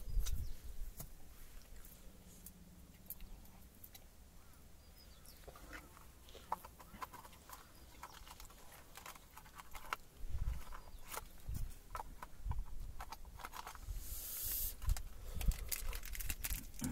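Scattered clicks, knocks and rustling of camp gear being handled and packed, with a few dull thumps and a short hissing rustle near the end.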